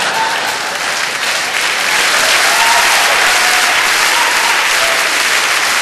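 Large theatre audience applauding steadily, swelling slightly about two seconds in.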